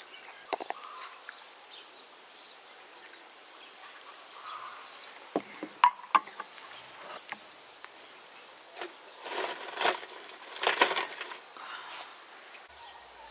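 A dark chocolate bar snapped by hand, its pieces clicking sharply against a glass bowl a few times. Then comes a longer stretch of louder rustling and scraping from handling about nine to eleven seconds in.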